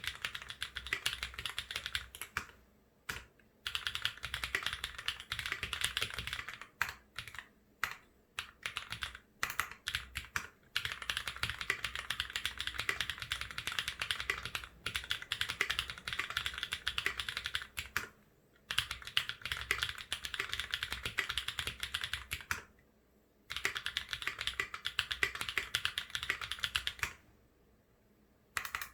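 Fast typing on a Duck Eagle v3 mechanical keyboard with Holy Chickies switches lubed with Krytox 107, an FR4 plate and GMK keycaps: dense runs of key clicks lasting a few seconds, broken by several short pauses, the longest near the end.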